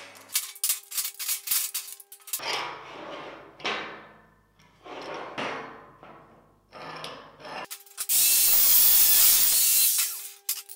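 Steel F-clamps clinking and knocking as they are handled on a perforated steel welding table, then several short sliding, scraping sounds as a clamp is moved and fitted. Near the end comes a loud, steady hiss lasting about two seconds.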